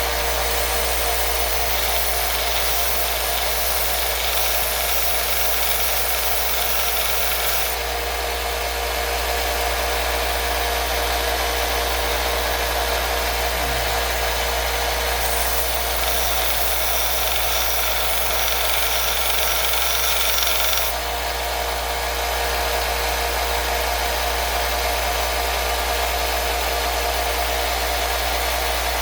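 A power tool running steadily, with a constant motor hum; its high hiss drops about eight seconds in, then grows stronger from about fifteen to twenty-one seconds in.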